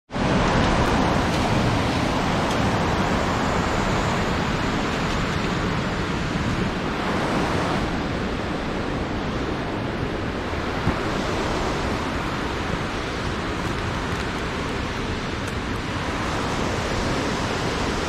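Steady rushing of water pouring over a small weir cascade into a deep pool.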